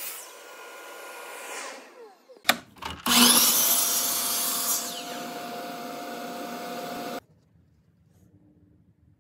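Bosch miter saw motor winding down with a falling whine. After a couple of clicks it is switched on again, spins up to speed with a rising whine and runs loudly, then cuts off suddenly about seven seconds in.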